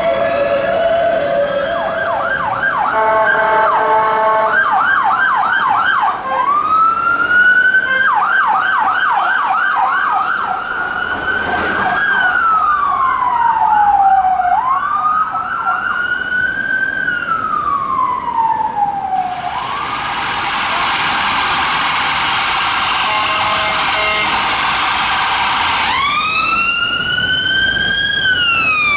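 Several overlapping emergency vehicle sirens on police vehicles, switching between a rapid yelp and a slower rising-and-falling wail. This is followed by a stretch of steady traffic noise. Near the end an ambulance siren starts a loud wail.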